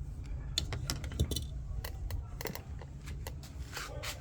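Irregular light clicks and rattles of small hard plastic parts being handled, over a low steady background rumble.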